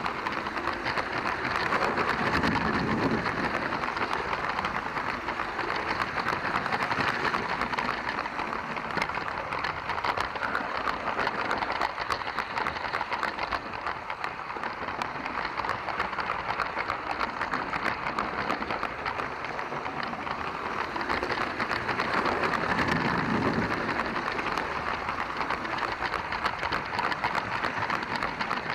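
LEGO train running along plastic track, heard from a camera riding on the train: its motor and gears whirring and the wheels clattering in a steady rattling hiss full of fine rapid clicks.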